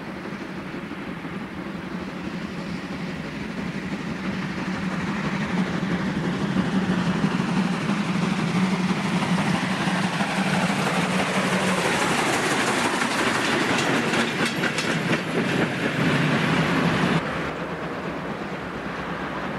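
A steam locomotive hauling passenger coaches approaches and passes close by, growing louder over several seconds. As the coaches go by, their wheels clatter rapidly over the rail joints. Near the end the sound cuts off abruptly and gives way to a quieter, more distant train.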